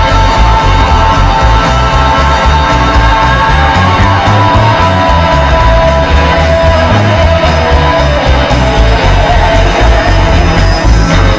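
Live rock band playing loudly: electric lead and rhythm guitars, bass guitar and drums, with long held notes running through.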